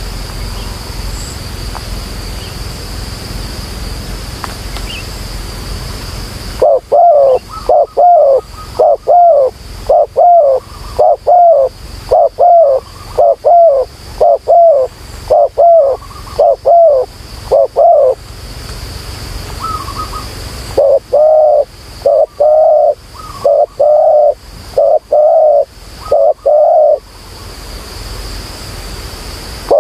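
Spotted dove cooing: loud, short coos that bend down in pitch, repeated about one and a half times a second in two long runs, the first beginning about seven seconds in and the second a few seconds after it stops. Before the coos there is only a steady high whine.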